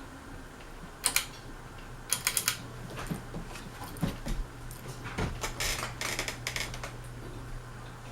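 Clicks and light metallic rattling from the controls of a Westinghouse Apollo Elite ceiling fan as it is switched, with a steady low motor hum coming in about two and a half seconds in.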